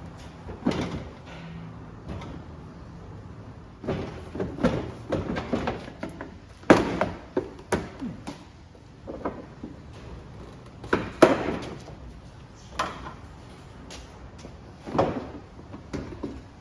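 Plastic front bumper cover of a Holden Commodore VE being worked loose and lifted off the car: a string of irregular knocks, clacks and scrapes as the plastic flexes, pops off its mounts and bumps against the body.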